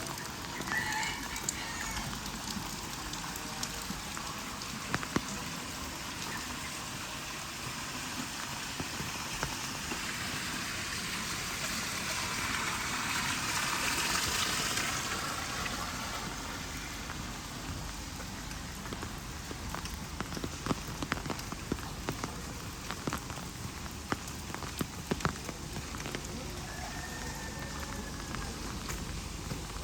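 Steady rain falling, with many scattered sharp ticks of drops through it; the rain swells louder around the middle, then eases back.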